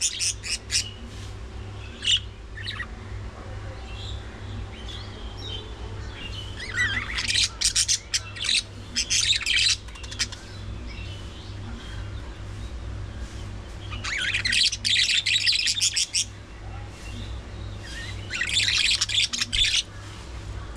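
A flock of budgerigars chattering, with several bursts of rapid high chirping a few seconds apart and scattered quieter calls between them.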